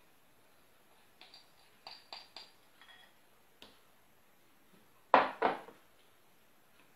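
A small spatula clicking and tapping against a glass bowl several times, then two louder knocks just past five seconds in as the bowl is set down on the table.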